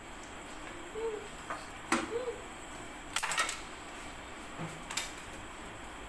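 Hard plastic clicks and knocks from an RC transmitter being handled, over a steady hiss: a sharp click about two seconds in, a quick run of clicks around three seconds, and another click near five seconds.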